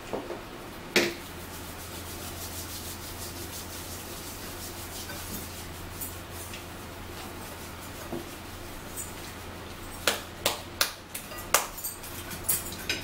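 Mealtime table noises: hands rubbing together, with a sharp click about a second in and a run of sharp clicks and knocks near the end, over a steady low hum.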